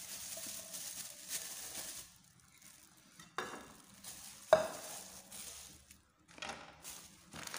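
Clear plastic bag rustling and crinkling as a camping cookware set's pots are slipped back into it, with a light knock and then a sharp metallic clank of pot against pot about four and a half seconds in, the loudest sound.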